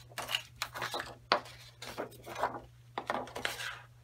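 A sheet of designer series paper being slid across the table and lifted, giving a series of papery rubs and rustles, with one light click about a second and a half in.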